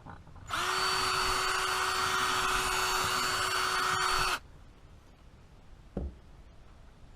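Power drill running at a steady speed for about four seconds, spinning up briefly at the start and stopping sharply, followed about a second and a half later by a single knock.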